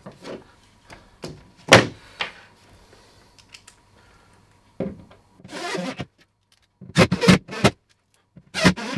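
Sharp knocks and clunks of a metal TV wall bracket and spirit level being handled against the wall, the loudest about two seconds in, followed by a few short bursts of screws being driven in to fix the bracket.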